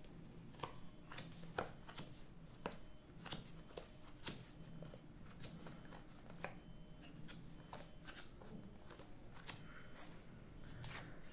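A deck of playing cards being shuffled in the hands and dealt one by one onto a table mat: faint, irregular clicks and flicks of card stock.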